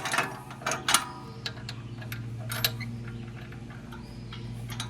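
Metal clicks and clanks from the tractor's three-point hitch lower links and pins being worked free by hand: a sharp knock at the start, another about a second in, then lighter clicks, over a steady low hum.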